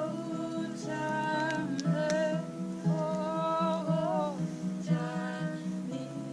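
Acoustic guitar strumming chords with a voice singing a melody over it, with no clear words.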